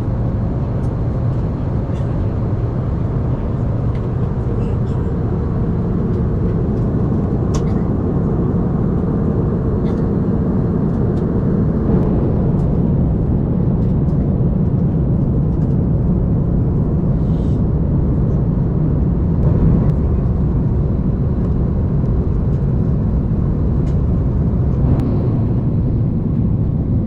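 Steady cabin roar of an Airbus A330-900neo on descent: engine and airflow noise heard from a window seat over the wing, with a few faint clicks.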